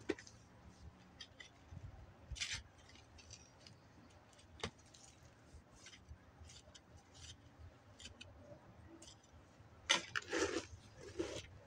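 Tines of a hand garden fork scratching and scraping into loose soil and mulch in short, scattered strokes, with a louder cluster of scuffing about ten seconds in.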